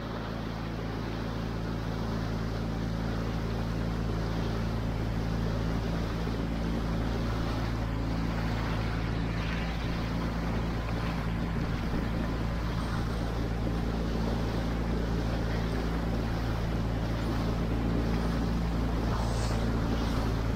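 Small skiff's outboard motor running at a steady speed underway, with water rushing past the hull and wind on the microphone.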